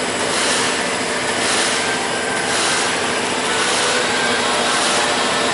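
Twin-servo bag cutting machine running: a steady mechanical noise, with a high hiss that swells and fades in a regular rhythm.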